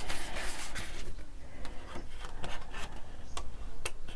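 Scissors fussy-cutting design paper: a run of small irregular snips, with the paper rustling and rubbing as it is turned, the rustle strongest in the first second.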